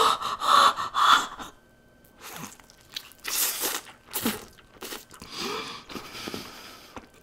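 Close-miked eating sounds of a person with a mouthful of stretchy melted cheese: wet chewing and crunching in separate bursts. The loudest burst comes in the first second and a half.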